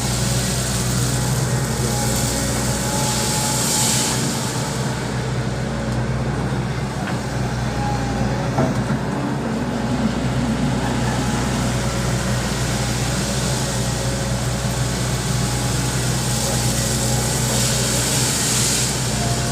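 Volvo EC200D excavator's diesel engine running steadily under work. Two swells of hiss come over it, about three seconds in and again near the end.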